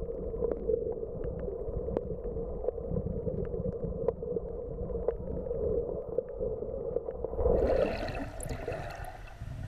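Underwater ambience picked up through a camera's waterproof housing: a muffled, steady drone over low rumbling water noise, with scattered sharp clicks. About three-quarters through it swells into louder, brighter water sloshing and bubbling, then eases off.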